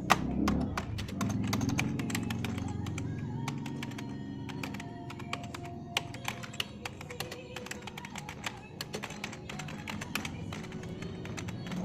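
Typing on a computer keyboard: rapid, irregular key clicks, several a second, with music underneath.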